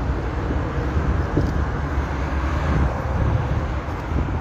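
Steady low rumble with a hiss of outdoor background noise.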